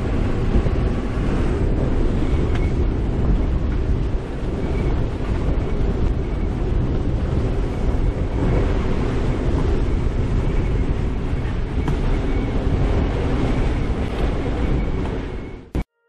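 Strong wind rushing and buffeting across the microphone on a sailboat's deck, over rough, choppy water: a loud, steady roar that cuts off abruptly just before the end.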